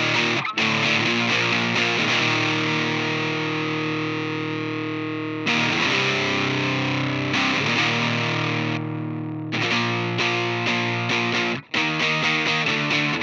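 Electric guitar with overdrive distortion from the Palomar Sound Prickly Pear dual drive pedal (two hex inverter dirt circuits). A chord is left ringing for several seconds, then new chords follow, and from about ten seconds in the playing turns to quick rhythmic strums.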